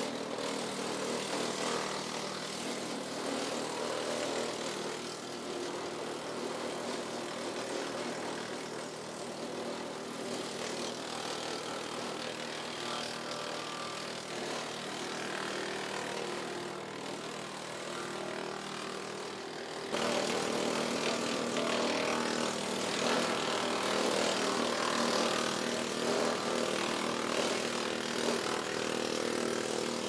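WoodMaxx WM-8M 8-inch PTO-driven wood chipper running off a TYM tractor's diesel engine, chipping leafy green limbs fed in by hand. A steady engine and PTO drone under the noise of the chipping, louder from about two-thirds of the way in.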